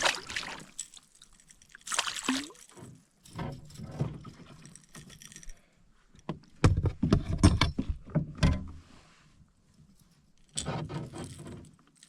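Canoe paddle strokes in lake water: several separate splashing strokes with quiet gaps between them, the loudest run of strokes about halfway through.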